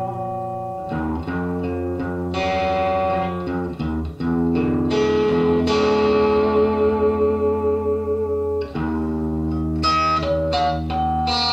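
Suhr Modern Satin electric guitar, amplified, playing sustained chords that change every second or two, then a few quick single notes near the end.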